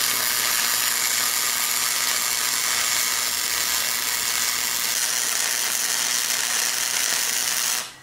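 Firepower FP90 MIG welder's arc crackling steadily during a test weld, stopping abruptly just before the end. The arc is sustained and even: the welder, fitted with a new rectifier (diode bridge) after it burnt out, is welding properly again.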